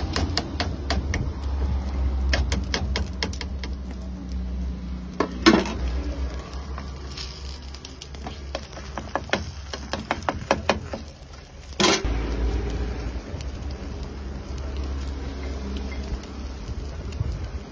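Metal ladle and spatula clinking and knocking against a steel pot and frying pan, in many short clicks with two louder knocks about a third of the way in and two thirds of the way in, over a steady low rumble.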